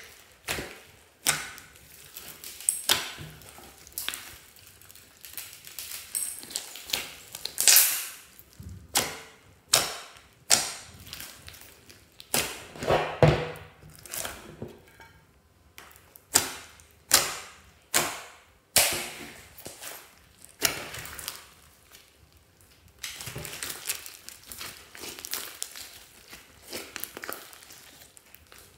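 Hands squeezing, pressing and stretching glossy slime mixed with foam beads: irregular sharp wet clicks and pops, about one or two a second, with a denser run of small crackles near the end.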